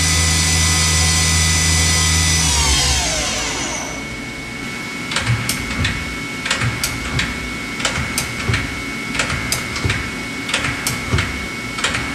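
1996 Eurotech 420-SLL CNC lathe: the spindle runs with a steady whine, then winds down in a falling pitch about three seconds in. After that the tool turret indexes with a series of sharp clunks over a steady high whine.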